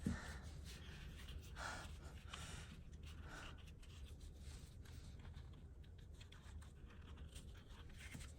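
Faint rustling and soft scraping of paper and cardstock being handled and folded, in a few short bursts over the first few seconds, over a low steady hum.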